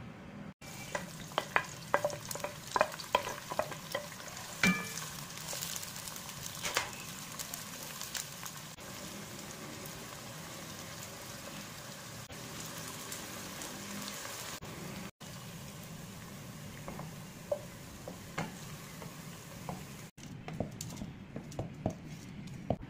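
Sliced onions frying in hot oil in a non-stick pan: a steady sizzle, with sharp clicks and scrapes of stirring in the first few seconds and again near the end.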